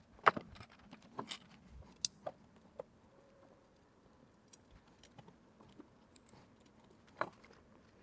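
Faint handling clicks and small metallic clinks from an aluminium profile rail, 3D-printed plastic parts and wires being taken apart by hand. There is a cluster of clicks in the first three seconds and one sharper clink near the end.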